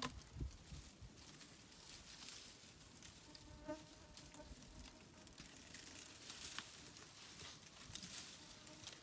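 Faint insect buzzing, a fly passing close about three to four seconds in, over a low outdoor hiss with scattered soft ticks.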